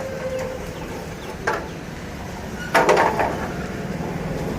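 A sharp knock about a second and a half in, then a short clatter of metal knocks near the three-second mark, from tools at work on a motorbike's chain during a chain change, over a steady traffic hum.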